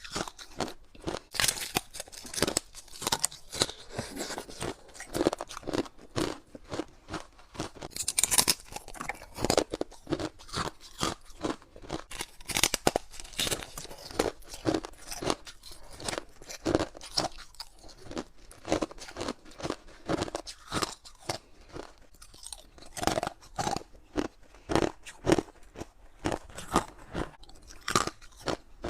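Close-up crunching and chewing of clear humidifier-tray ice between the teeth, in rapid irregular crunches several times a second.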